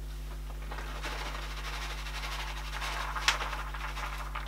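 Rustling and handling noise, with a sharp click a little over three seconds in and a smaller one near the end, over a steady low electrical hum.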